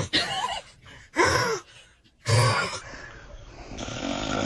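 A man snoring loudly in three short, gasping snorts about a second apart, then a longer, steadier snore near the end.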